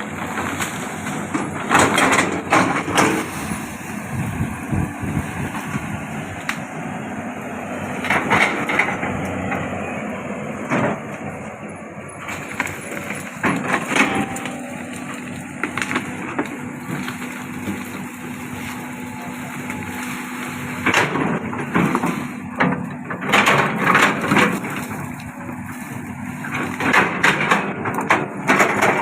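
Cat 320D L long-arm excavator's diesel engine and hydraulics working steadily, broken by several bursts of cracking and splintering wood as trees and branches give way.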